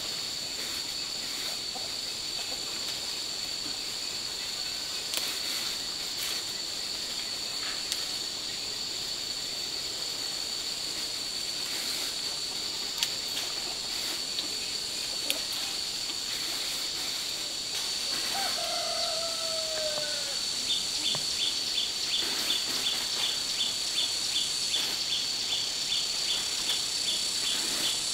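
Steady high-pitched drone of insects throughout. About two-thirds of the way in, a rooster crows once in a falling call, and from then on an insect chirps rapidly, about three chirps a second.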